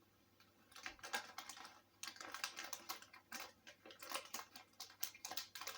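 Crunchy muesli bar crunching as it is broken and eaten: an irregular run of small, crisp cracks, several a second, starting about a second in.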